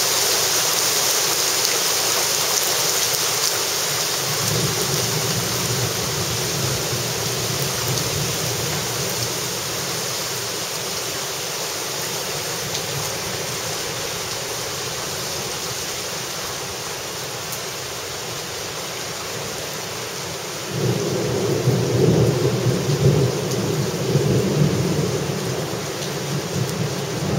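Heavy wind-driven rain in a storm, a steady loud hiss of rain and spray. About twenty seconds in a louder, uneven low rumble sets in and carries on.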